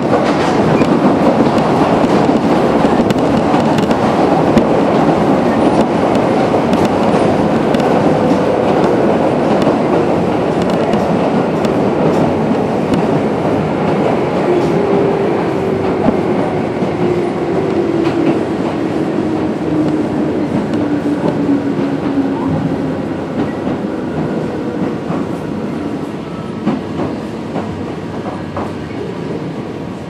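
Toyama Chiho Railway 17480 series (ex-Tokyu 8590) electric train running, heard from aboard: a steady rumble with wheels clicking over rail joints. Midway a faint motor whine falls in pitch as the train slows, and the noise eases toward the end.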